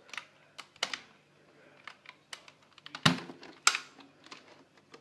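Irregular sharp clicks and knocks of hard objects being handled, with two louder knocks about three seconds in and a moment later.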